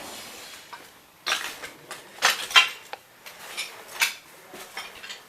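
Irregular bursts of hard rattling and clattering, the loudest about two and a half seconds in, typical of an airsoft player's gear and gun knocking about on the move.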